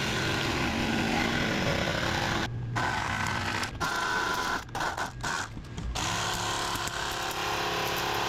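A steady mechanical running noise with faint steady hums in it, cutting out briefly several times in the middle.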